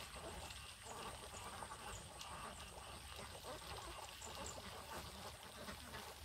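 Faint, scattered quacks and small clicking, rustling sounds of domestic ducks foraging in wet rice stubble.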